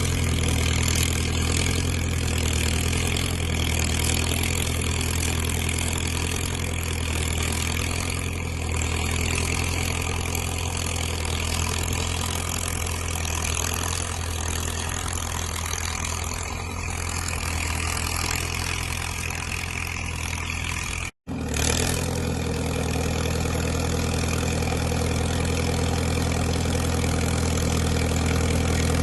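Diesel engine of a Caterpillar crawler dozer running steadily at an even speed. The sound cuts out for a moment about two-thirds of the way through, then carries on.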